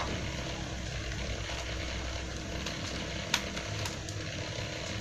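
Steady low background hum, with a single light click a little over three seconds in from a screwdriver working on the plastic bottom casing of a laptop.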